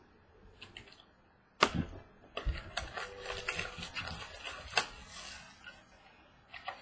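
Foil wrapper of a trading-card pack being torn and crinkled open, with the cards and a plastic card holder clicking as they are handled: one sharp click after a short quiet, then an irregular run of crackles and a few sharper snaps.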